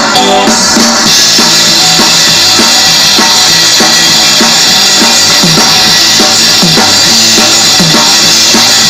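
Live band playing, with the drum kit to the fore: a steady kick-and-snare beat, and cymbals coming in about a second in, over the rest of the band.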